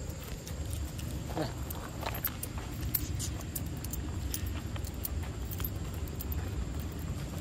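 Dry leaf litter and twigs crackling and rustling underfoot in scattered light clicks, over a steady low rumble of wind on the microphone.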